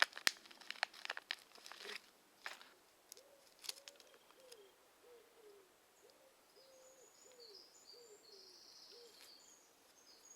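Crinkling and rustling of packaging as a first aid kit is gone through and a plaster is got out to cover a blister, loudest at the start. Then a bird gives low cooing calls in repeated phrases of several notes, with fainter higher chirps from another bird.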